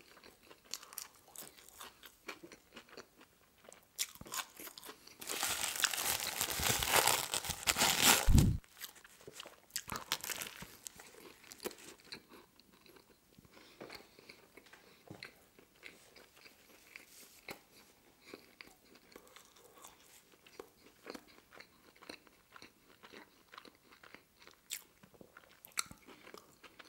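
Close-miked eating of a sandwich: a loud crunchy bite about five seconds in that lasts some three seconds, then chewing with scattered small wet mouth clicks.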